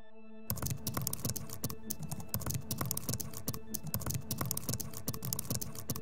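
Rapid computer keyboard typing clicks, starting about half a second in, under a held musical note.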